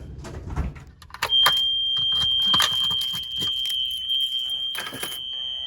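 A fire alarm signal switches on about a second in and sounds a steady, unbroken high-pitched tone, with scattered knocks and clicks over it.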